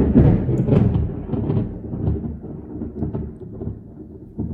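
Close thunder: a sharp, loud crack right at the start, then rolling rumble with smaller cracks that slowly fades.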